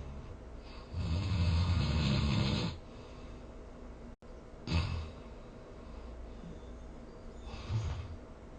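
A person snoring. One long, loud snore comes about a second in, a short sharp snort follows about halfway through, and a weaker snore comes near the end.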